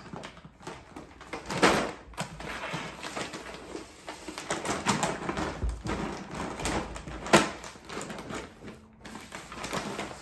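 A dog hauling a 5-kilo bag of dog food up onto a chair: irregular rustling and scuffing of the bag, with two louder knocks, one about a second and a half in and one past seven seconds.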